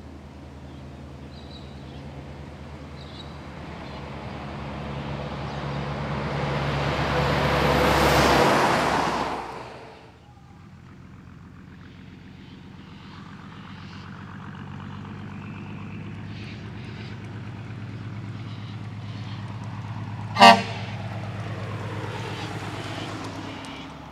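A heavy diesel truck approaching and passing at speed, its engine and tyre noise swelling to a peak about eight seconds in and then falling away. After that, another truck's diesel engine running steadily, with one short, sharp blast of the air horn near the end.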